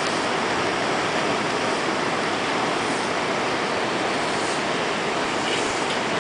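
Fast-flowing floodwater rushing past, a loud, steady, even noise.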